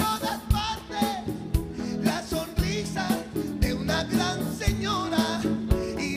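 A male singer performing live with a band, over a steady drum beat of about one stroke a second.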